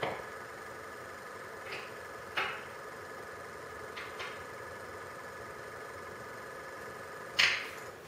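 A few light knocks and clicks of metal being handled while a corner of a CNC router's X-axis rail is adjusted for level, the loudest knock near the end. Under them runs a steady high machine whine.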